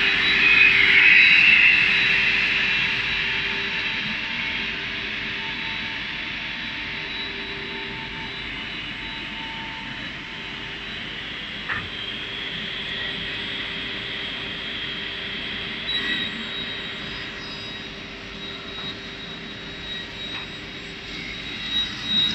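V-Hold MJ163C straight line rip saw running with a steady high whine over a lower hum. It is loudest for the first couple of seconds, then settles to an even run, with two brief knocks near the middle.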